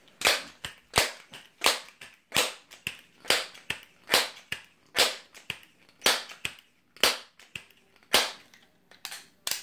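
Crosman 1322 multi-pump pneumatic air pistol being pumped up for a shot: the pump lever is swung open and snapped shut about ten times at a steady pace, with a sharp clack on each stroke.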